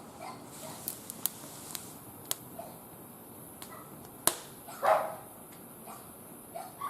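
Wood fire crackling, with scattered sharp pops. A short animal call, louder than the pops, comes about five seconds in, with a few fainter calls around it.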